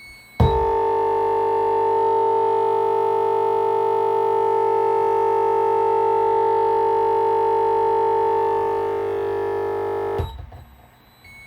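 Loud, steady electronic buzz of fixed tones from speakers fed through an MT-VIKI 4-port KVM switch, the constant audio buzzing that makes the switch faulty. It starts abruptly about half a second in and cuts off suddenly near the end.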